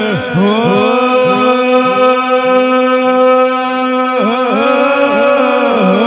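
A man singing a devotional chant in one long held note: after a short dip in pitch he holds the note steady for about three and a half seconds, then breaks into quick wavering turns.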